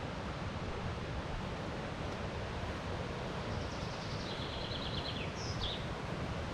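Steady rush of the river rapid. About halfway through, a songbird sings one short phrase: a fast high trill, a slightly lower trill, then a quick high falling note.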